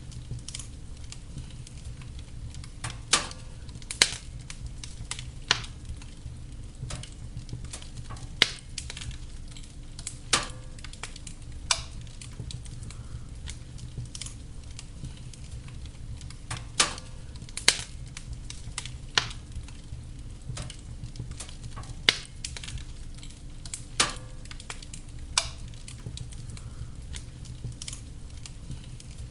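Wood fire burning in a fireplace: steady low flame noise with sharp crackles and pops at irregular intervals, a dozen or so louder snaps among them.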